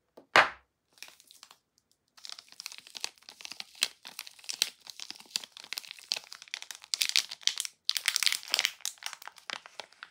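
A soap bar's clear plastic wrapper crinkling and crackling as it is opened by hand, after a single sharp knock about half a second in.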